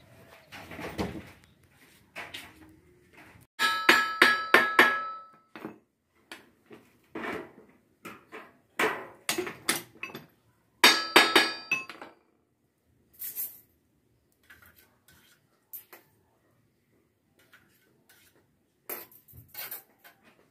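Thin stainless steel sheet dome panels being handled and knocked by hand: irregular metallic clanks and rattles, with two louder bursts of ringing about four and eleven seconds in.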